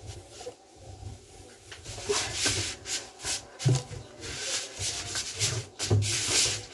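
Fabric rustling and rubbing in quick, irregular swishes, with a few soft thumps, as clothes are handled in a hurry. It is faint for the first two seconds and busier after that.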